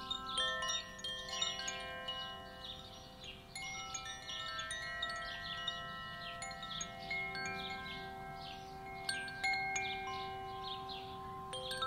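Koshi chimes ringing: quick, irregular tinkling strikes, with many bell-like tones overlapping and ringing on.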